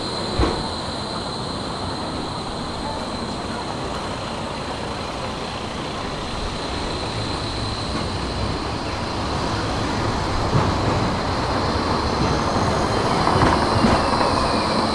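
Electric trams on street track: one pulls away from the stop with a rolling rumble, then another approaches and rolls in, growing louder near the end. A steady high whine runs underneath, and there is a short knock about half a second in.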